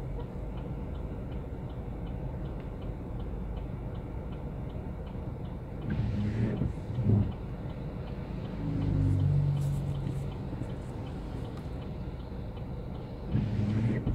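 Inside a car idling in traffic at a red light: a steady low engine and traffic rumble, with a turn signal ticking about three times a second. The windscreen wiper sweeps across the wet glass about six seconds in and again near the end.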